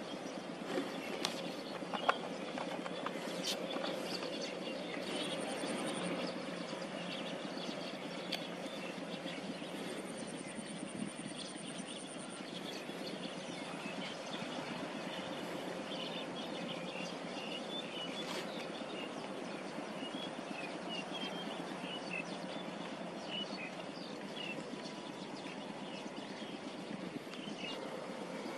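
Outdoor ambience: a steady background hum with faint, scattered bird chirps, and a thin, high buzzing trill twice in the first half.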